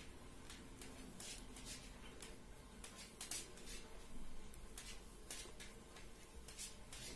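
Faint, irregular clicking and scraping of size 3 circular knitting needles as stitches are knitted by hand, a few clicks a second.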